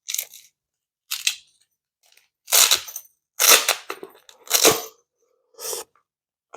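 Velcro (hook-and-loop) tabs on a brass catcher's mesh bag being worked: about six short ripping rasps, the loudest near the middle.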